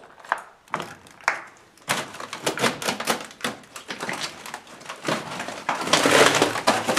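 Footsteps crunching over broken plaster and rubble: a rapid, irregular crackle of small cracks and scrapes, sparse at first, denser from about two seconds in and loudest near the end.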